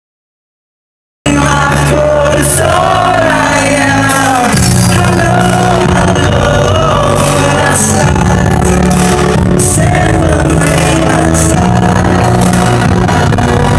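Loud hardcore dance music played over a club PA, with a sung vocal line over sustained bass notes. The sound cuts out completely for about the first second, then the music comes back at full volume.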